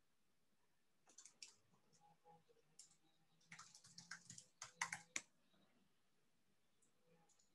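Faint computer keyboard typing and clicking: irregular clusters of quick keystrokes from about a second in until about five seconds in, then quiet.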